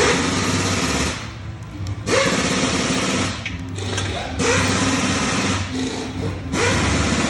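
2022 Toyota Tundra's twin-turbo V6 cranked by its starter in four short bursts of about a second each, turning over fast without catching: the engine won't start.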